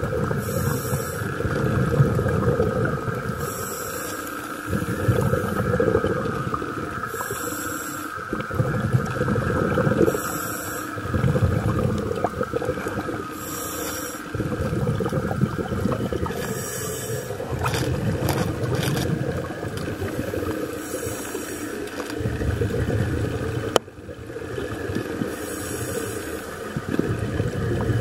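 Scuba diver breathing through a regulator underwater: a sharp hiss with each inhalation, eight times at intervals of about three to four seconds, and between them the low bubbling rumble of exhaled air. A steady faint whine runs underneath.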